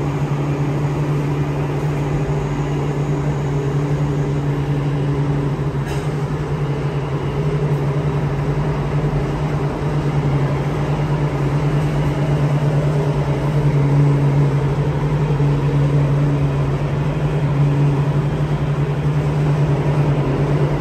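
Circle Line metro train running, heard inside the carriage: a steady low hum and rumble with a higher tone that fades in and out. A single short click about six seconds in.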